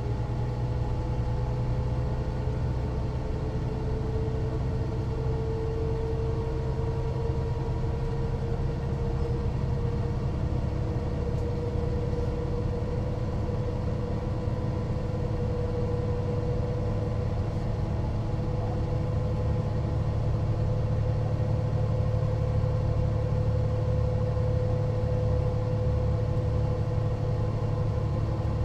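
Mercedes-Benz O405NÜ bus engine running steadily under way: a continuous low drone with a whining tone above it that slowly rises in pitch.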